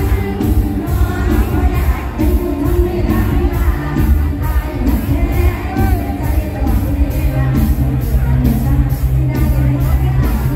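Live mor lam band playing a toei through a large PA system: loud amplified music with heavy bass, a steady beat of a little over two strokes a second, and a singing voice.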